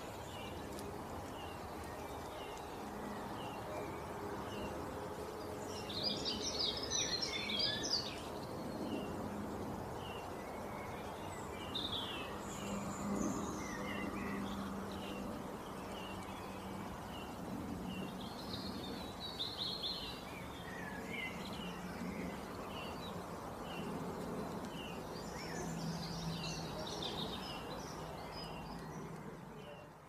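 Birds chirping and singing: a short chirp repeated at an even pace throughout, with louder bursts of song a few times, over a steady low background hum.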